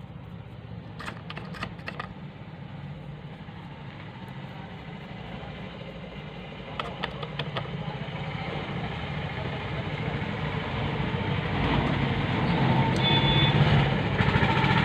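A steady low mechanical hum with background noise, growing louder through the second half, with a few faint light clicks in the first seconds.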